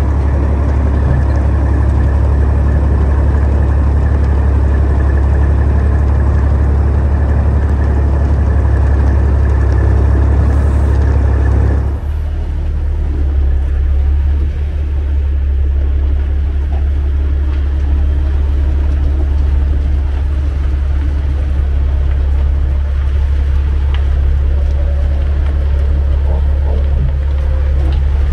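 Tractor-trailer truck running down the road: a steady, deep engine drone under broad road noise. About twelve seconds in, the higher road noise drops away suddenly, leaving mostly the low drone.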